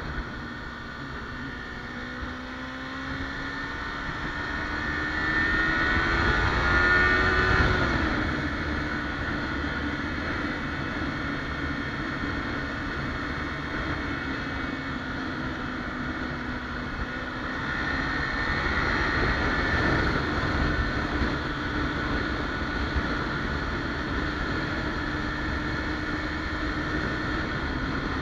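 Kawasaki Ninja 300 parallel-twin engine under way, accelerating hard with its pitch climbing steadily then dropping sharply about eight seconds in, holding steady, and climbing again briefly past the middle.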